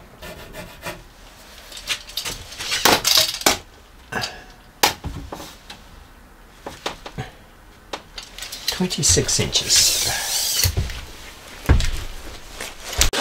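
A steel tape measure clicking and rattling as it is pulled out and handled. After that comes rustling and a heavy thump as someone moves past close by.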